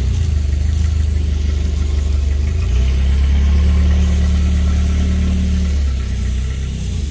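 Engine of a Tru-Cut bandsaw sawmill running steadily, easing off slightly about six seconds in.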